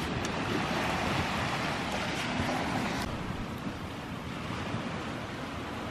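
Steady rush of Lake Superior waves washing on the shore, mixed with wind buffeting the microphone. About three seconds in, the sound changes abruptly as the higher hiss drops away.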